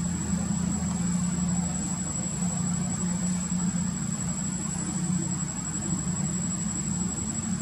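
A steady low motor hum with no change in pitch or loudness, with a thin steady high-pitched tone above it.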